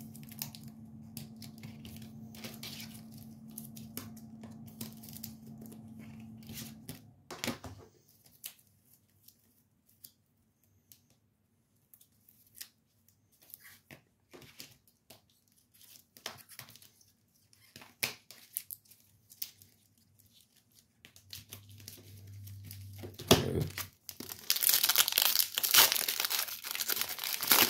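Scattered faint clicks and rustles of trading cards being handled and slid into plastic toploaders. Near the end comes a loud crinkling tear as the wrapper of a 2023 Upper Deck AEW trading-card pack is ripped open.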